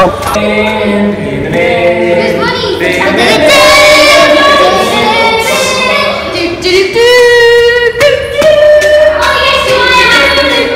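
Choral singing: several voices holding long, wavering notes, with a woman's voice among them.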